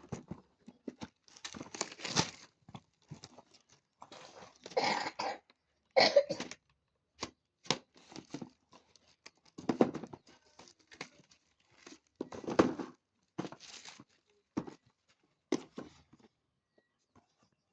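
Packaging of a manual drain cleaner being opened and handled: irregular bursts of rustling and tearing with sharp clicks and knocks in between.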